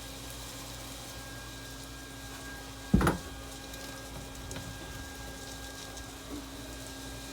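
Steady hum and hiss of loose-fill cellulose insulation being blown through a hose into an attic, with one short thump about three seconds in.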